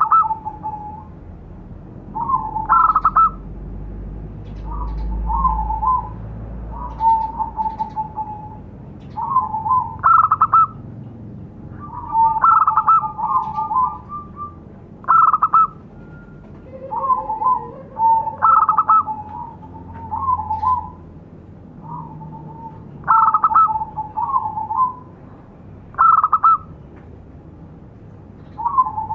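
Zebra dove (perkutut) cooing: short phrases of quick staccato coos, a new phrase every one to three seconds.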